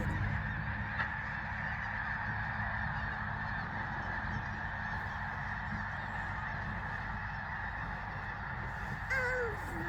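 A large flock of geese honking, a dense steady chorus of overlapping calls with a steady low rumble underneath. About nine seconds in, one nearer goose gives a louder honk that falls in pitch.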